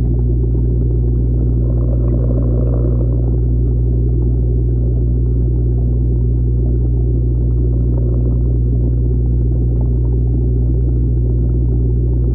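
A steady low hum with evenly spaced overtones under a constant rumble, unchanging throughout. It sounds like a camera left underwater in a fish pond picking up equipment noise.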